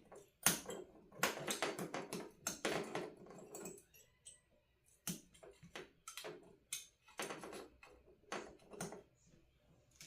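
A run of small sharp clicks and rustling from handling a soldering-kit circuit board and its small parts, with a denser patch of rustling about a second in.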